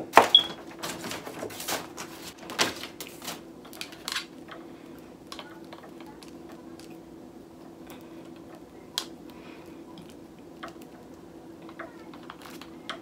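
Plastic clicks and knocks from a ring light's power adapter and cords being handled, dense in the first few seconds and then sparse, over a faint steady hum.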